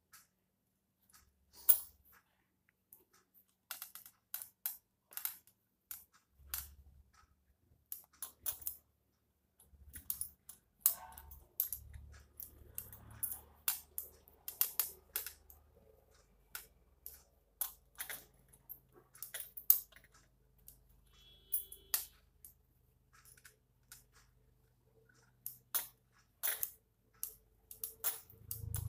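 Hand knitting with metal knitting needles: irregular light clicks and taps as the needles meet and the stitches are worked, scattered all through.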